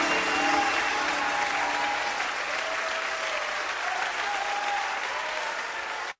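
Audience applauding and slowly fading, with a few soft held musical notes lingering under it; it cuts off suddenly near the end.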